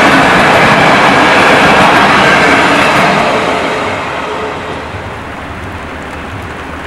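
Passenger train coaches rolling past on the rails, loud at first and then fading away from about three seconds in as the train recedes.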